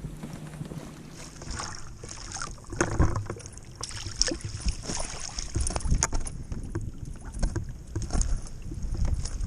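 Water lapping against the hull of an Old Town Bigwater PDL pedal kayak, with irregular sharp clicks and knocks and a steady hiss.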